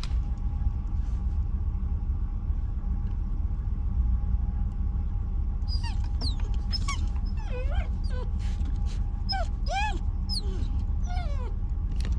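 Vizsla puppy whining in a string of high, wavering whimpers through the second half, over the steady low rumble of a truck driving.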